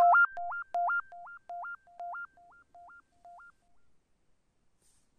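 Short electronic intro jingle: a synthesized two-note figure, a low note leaping up an octave, repeated just under three times a second and fading away like an echo over about three and a half seconds.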